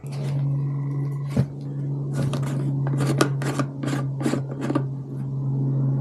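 Polystyrene foam packing rubbing and squeaking against the box as a diesel air heater is worked out of it: a quick run of short scraping rubs in the middle, over a steady low hum.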